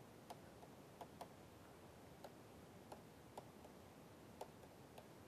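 Faint, irregularly spaced ticks of a stylus tapping on a pen tablet during handwriting, about ten in all, over near-silent room hiss.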